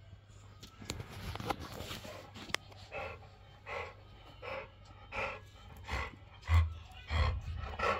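A dog panting hard in short, regular huffs, about one every three-quarters of a second, starting about three seconds in. There are a few sharp clicks before the huffs begin and a couple of dull thumps near the end.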